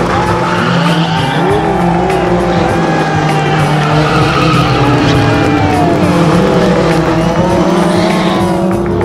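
Racing car engines revving, their pitch rising and falling as they accelerate and shift, mixed with background music.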